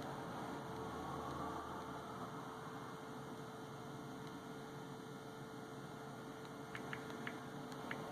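Steady low electrical hum with a faint constant tone, and a few faint light clicks near the end.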